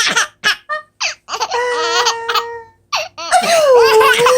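Baby laughing: a few short bursts, then two long, wavering squeals of laughter.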